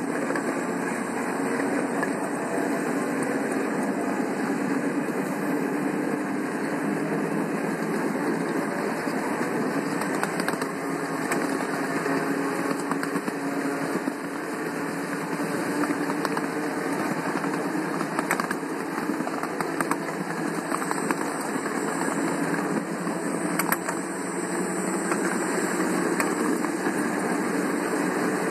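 Ride-on scale model locomotive running steadily along its track: the even drone of its small engine and the rolling of the train, with a few faint clicks.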